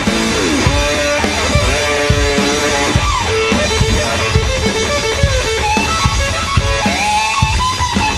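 Live blues-rock duo playing an instrumental passage: electric guitar playing gliding, bending notes over a drum kit's steady beat.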